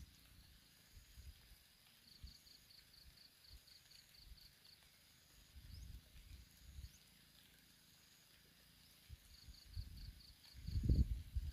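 Insects chirping in a thin, steady high tone, broken twice by runs of quick pulses at about four a second, with a few short rising chirps. Irregular low rumbles underneath, loudest about a second before the end.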